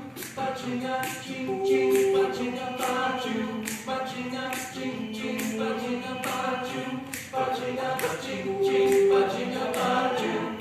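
A cappella vocal group singing a song intro: sustained stacked vocal harmonies over vocal percussion keeping a steady beat of about two hits a second.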